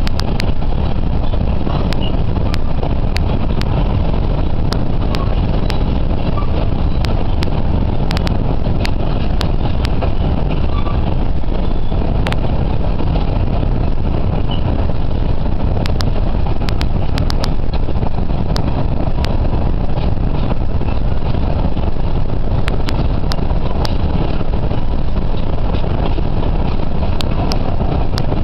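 Freight train of hopper and tank cars rolling past: a steady, loud low rumble of wheels on rails, with scattered sharp clicks.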